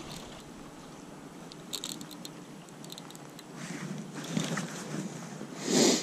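River-bank outdoor noise: flowing river water and wind on the microphone. A few faint clicks come about two seconds in, and a short, louder rush of noise comes just before the end.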